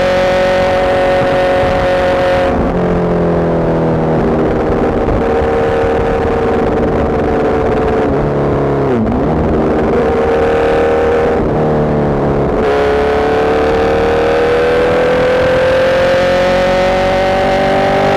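Superbike engine running with wind rush over the microphone, its pitch falling as the throttle eases about two and a half seconds in and dipping sharply twice near the middle. From about two-thirds of the way through, the engine pitch rises steadily under acceleration, and the wind rush returns.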